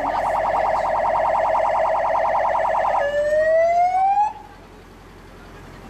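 Police car siren sounding a fast warble, then about three seconds in switching to a single rising wail that cuts off about a second later.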